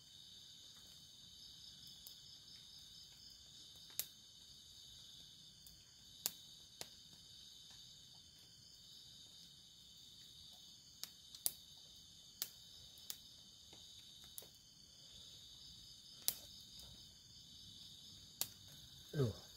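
A steady, high chorus of night insects, crickets chirping in the forest. About ten sharp clicks and taps are scattered through it.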